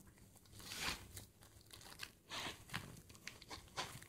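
Faint, irregular rustling and crinkling with a few light clicks: cloth rubbing against a handheld camera's microphone as it is handled.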